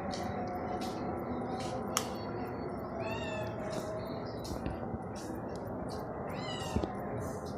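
A cat meowing twice, short high calls about three seconds in and again near the end, over a steady background hiss with faint clicks.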